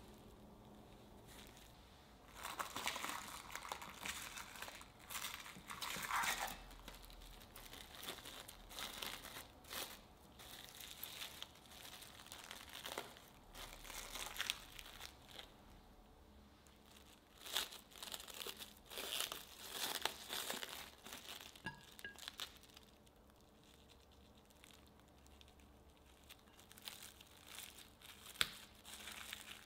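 Plastic cling wrap crinkling and rustling in irregular bursts as hands handle and peel it from a disc of chocolate truffle mixture, with quieter stretches between.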